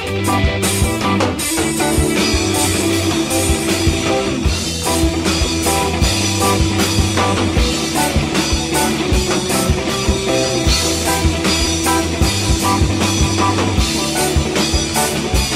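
Instrumental stretch of a band's song with no singing: a steady drum beat under sustained guitar-led chords.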